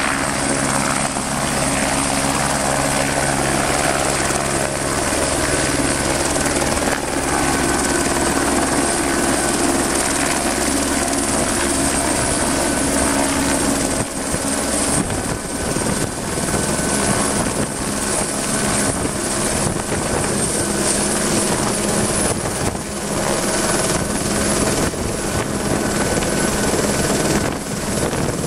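Écureuil helicopter running close by in a hover, then lifting off with a concrete bucket slung on a long line: steady turbine whine under the rotor noise. From about halfway the blade chop becomes more pronounced and the sound grows more uneven as it climbs away.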